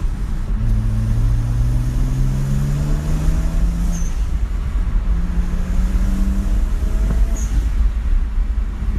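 BMW N54 twin-turbo straight-six engine running under a low rumble, its pitch rising twice as it revs up, each time ending in a short high chirp.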